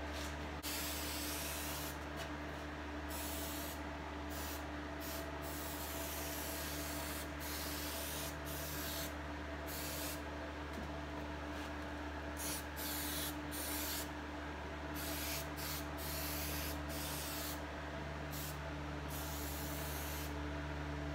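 Spray adhesive hissing out in a series of short and longer bursts, with brief pauses between them, as glue is sprayed on to re-glue the vinyl roof covering.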